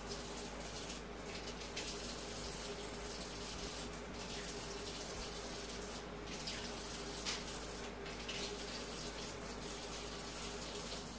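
Kitchen sink faucet running steadily, the water splashing over peeled hard-boiled eggs as they are rinsed of leftover bits of shell.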